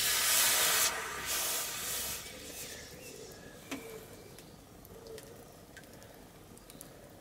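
Hot forged railroad spike knife blade quenched in a tub of water to harden it: loud hissing steam that comes in a few surges for the first two seconds, then dies down to faint sizzling with small crackles and bubbling as the steel cools.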